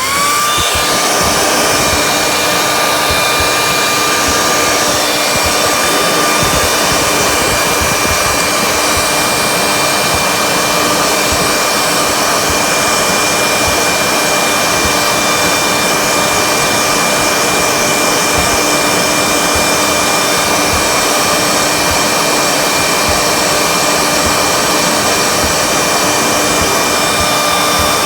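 Heat gun switched on: its fan motor spins up at the start, then blows steadily with an even rush of air and a constant whine.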